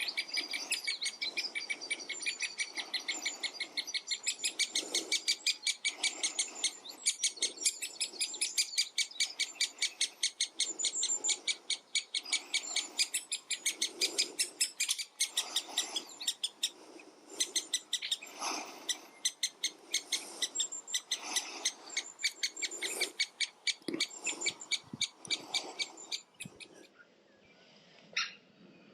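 Great spotted woodpecker nestling calling from the nest hole: a rapid, unbroken series of short high calls, about five a second, typical of a chick begging for food. The calling cuts off suddenly near the end, followed by a few separate calls.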